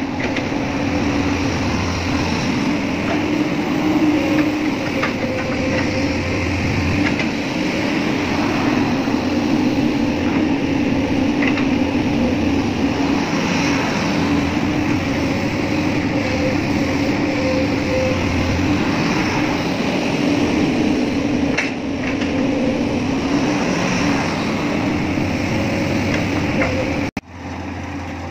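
Excavator's diesel engine and hydraulics running steadily under work, a continuous mechanical drone with a few brief metallic clicks; the sound cuts off abruptly near the end.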